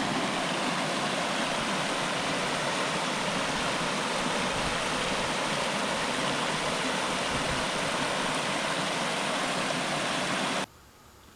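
Steady, even rushing noise that cuts off suddenly near the end.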